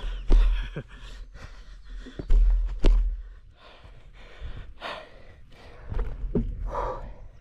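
Wind buffeting the microphone in heavy low rumbles, with sharp knocks and rattles typical of a bicycle riding over a gravel track, and loud breaths between them.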